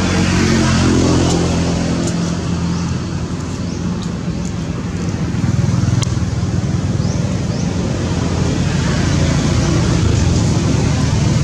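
A motor engine running steadily with a low hum. Its pitch shifts in the first couple of seconds, and it eases off slightly before getting louder again about halfway through.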